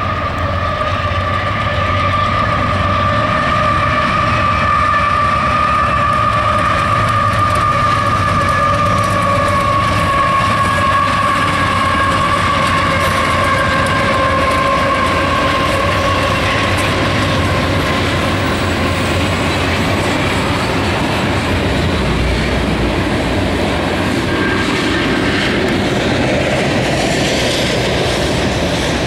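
Diesel-powered Union Pacific freight train passing: a deep locomotive rumble, with a long steady tone that slowly falls in pitch and fades over the first half. The rest is the rhythmic clatter of loaded coal hopper cars' wheels over the rail joints.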